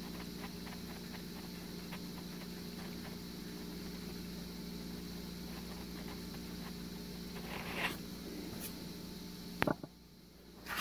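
Faint metal clicks and small scrapes as a piston cooler jet bolt is turned in by hand into a Ford 7.3 Power Stroke cylinder block, over a steady low hum. A louder scrape comes near the end, then a single click.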